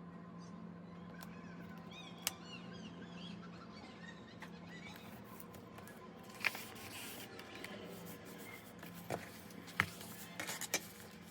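Journaling handling sounds: a few sharp clicks and taps, and short rustles of paper or sticker sheets, over a faint steady hum with faint high chirps.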